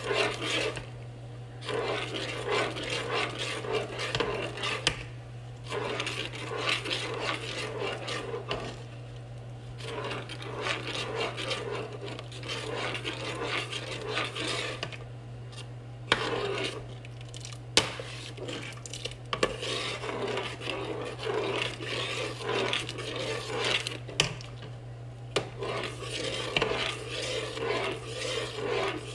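A metal spoon stirring and scraping around a metal saucepan of hot coconut milk and corn kernels, in stretches of a few seconds broken by brief pauses.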